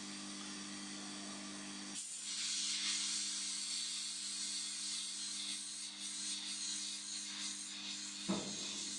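A low steady hum, then about two seconds in a heat gun starts blowing with a strong, even hiss of hot air as it shrinks heat-shrink tubing over soldered wires. A short knock near the end.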